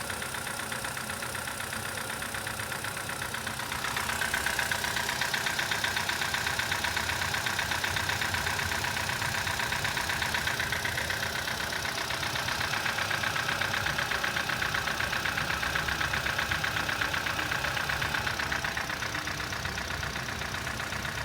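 Chevrolet Cobalt II's 1.5-litre four-cylinder engine running with a fast, steady, very strong knock that grows louder about four seconds in. The knock comes from play in the connecting-rod small-end bushings of the third and fourth cylinders, which turned out to be burnt.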